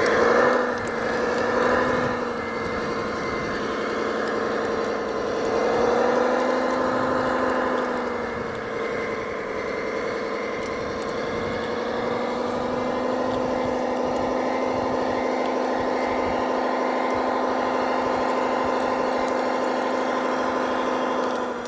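Scale RC heavy vehicle's engine sound, a simulated diesel idle from its onboard sound unit, running steadily with brief revs about a second in, near two seconds and around six seconds.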